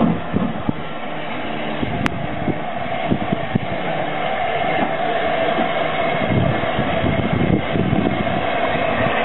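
Railway train running, a steady rumble that grows slowly louder, with a single sharp click about two seconds in.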